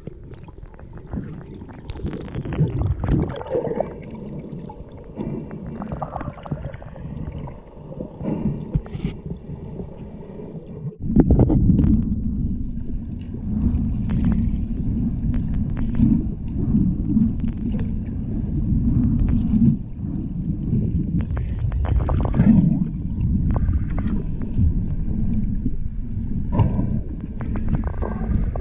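Muffled underwater water noise picked up by a camera's microphone inside its waterproof housing: a steady low rumble with scattered clicks and knocks. The rumble becomes suddenly louder about eleven seconds in.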